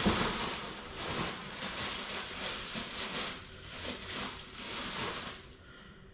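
Packaging rustling and crinkling in an irregular run of short scratchy strokes as the shoes are unpacked by hand; it dies away a little past five seconds in.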